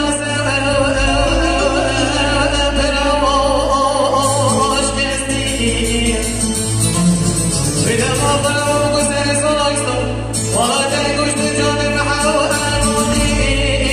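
A man singing an ornamented, wavering melody into a microphone over a sustained electronic keyboard accompaniment, with short breaths between phrases.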